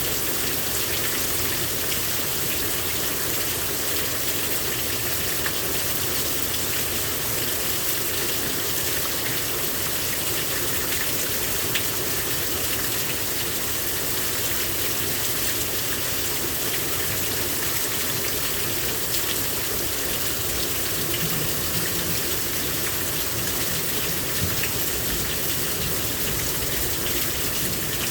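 Heavy rain pouring down steadily, an even hiss of water with no let-up.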